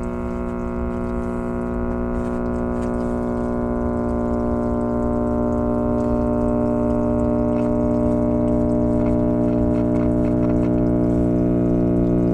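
Zenith AM tube clock radio humming steadily through its speaker, a buzzy hum with many overtones that grows slowly louder. It is capacitor hum, the sign of a failed main filter capacitor.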